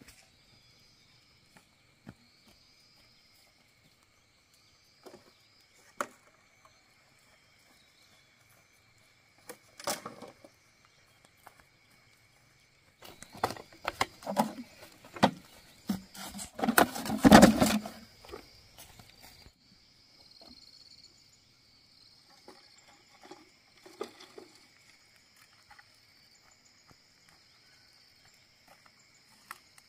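Hollow knocking and rattling of bamboo poles and firewood being picked up and handled, heaviest from about 13 to 19 seconds in, over a steady high-pitched drone of forest insects.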